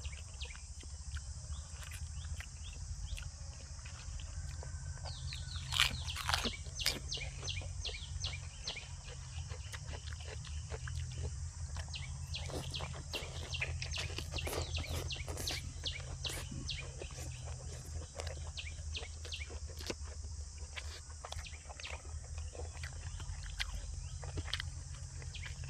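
Close-up chewing and mouth sounds of a person eating, with clusters of wet clicks and crunches about six seconds in and again from about twelve to sixteen seconds in. A steady low hum and a constant high hiss run underneath.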